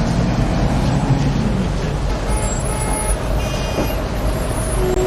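Heavy city traffic: a steady low rumble of engines. A brief high-pitched squeal comes about midway.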